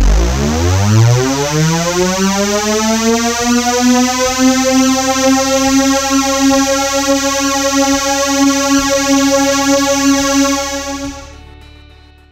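Synthesizer tone with many harmonics, rising from a deep rumble over about three seconds, then holding one steady pitch and fading out near the end, like a power-up sound effect.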